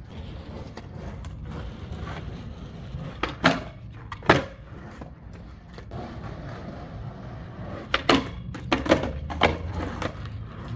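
Skateboard wheels rolling on concrete with a steady low rumble, broken by sharp clacks of the board hitting the ground as tricks are popped and landed: two about a second apart near the middle, then a quick cluster of four or five near the end.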